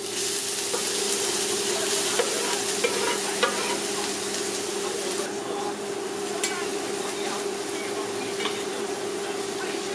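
Chopped scallions sizzling in hot oil in a cast-iron skillet. The hiss starts suddenly as they drop in, with scattered crackles and pops, and a wooden spatula stirs them through the oil.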